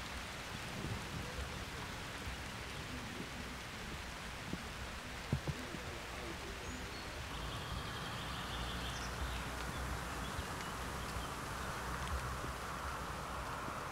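Outdoor ambience: a steady hiss over a low rumble, with a few soft taps in the first half and faint high bird chirps after the middle.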